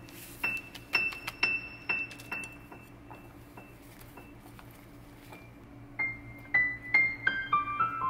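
Background piano music: a high note repeated about twice a second, a short lull, then a run of falling notes from about six seconds in.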